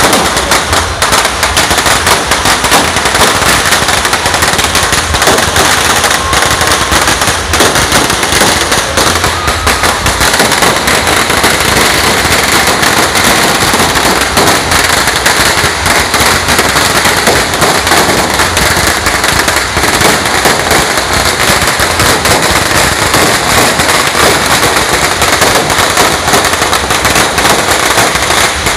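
Firecrackers and fireworks going off in a dense, unbroken barrage of rapid cracks and bangs, many overlapping at once.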